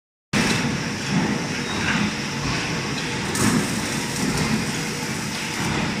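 Automated cable-tray welding line running: steady machine noise with a constant hum and a few brief louder clatters.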